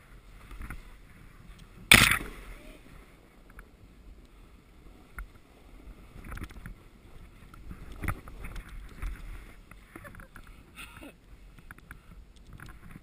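Snowboard sliding through deep powder snow, an uneven swishing hiss with scrapes and knocks as the board turns. A sharp, loud knock about two seconds in, with smaller knocks later.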